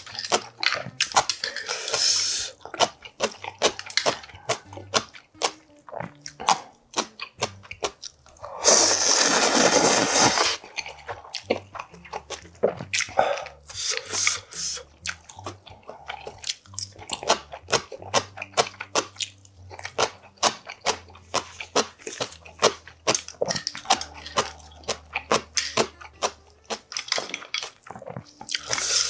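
Close-miked eating of spicy ramen noodle soup: a run of wet chewing and mouth smacks, with a long, loud slurp of noodles and broth about nine seconds in and shorter slurps near the start and end.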